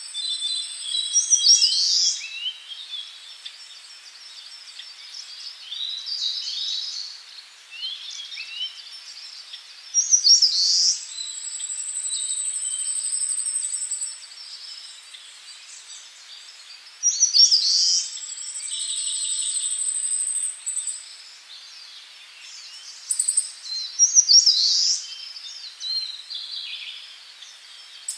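Songbirds chirping and singing, with short sharp calls and several long, very high, even trills of a few seconds each.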